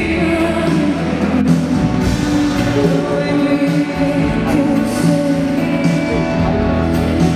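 Live band with a female lead singer, amplified through the arena sound system and heard from the audience.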